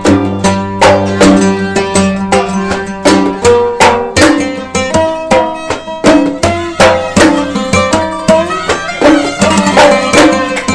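Instrumental passage of Gulf Arab folk music: plucked qanun and violins playing a melody over a steady hand-drum beat, about two to three strokes a second.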